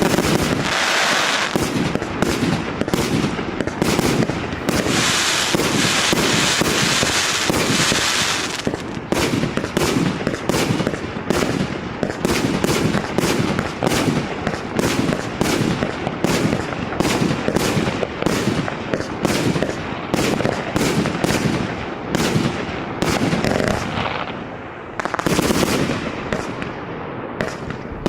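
MAXSEM multi-shot fireworks battery (cake) firing shot after shot in rapid, continuous succession. A dense hiss runs under the shots near the start and again from about five to eight seconds in. The firing eases briefly about 24 seconds in, then picks up again.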